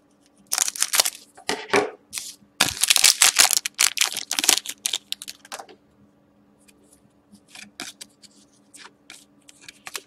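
A foil trading-card pack is cut open with scissors, its wrapper crinkling loudly for the first five seconds or so. After that come softer, scattered rustles as the cards are slid out and handled.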